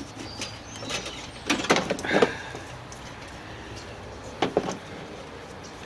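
A few sharp clunks and scrapes of metal parts being handled and set into place in a car's battery tray, with a cluster of knocks about two seconds in and another single knock near the middle.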